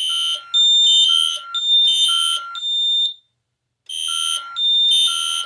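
Ademco fire alarm system sounding in alarm: shrill electronic alarm tones at several pitches, pulsing on and off for about three seconds, stopping briefly a little past the middle, then pulsing again.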